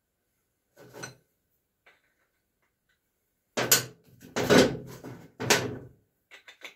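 Metal parts and tools clattering as an idler pulley, bracket and carriage bolt are fitted together on a steel mower deck: a faint clink about a second in, then three louder bursts of clattering from about three and a half seconds, and a few light clicks near the end.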